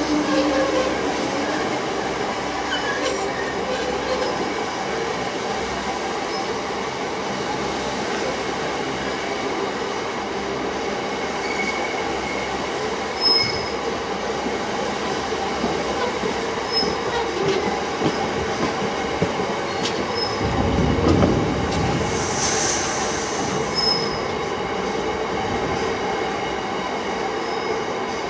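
Freight train of bogie hopper wagons rolling steadily past, with wheels and bogies rumbling on the rails and brief high squeals from the wheels now and then. A louder low rumble swells about twenty seconds in.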